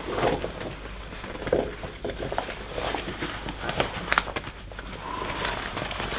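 Rustling of a nylon waterproof jacket and the squeak and scuff of a rubber gas mask and hood being pulled on and adjusted, with scattered sharp clicks of handling, loudest about four seconds in.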